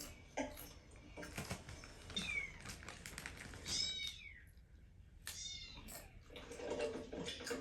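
A domestic cat meowing about three times, each call arching and falling in pitch, with short clicks and taps in between.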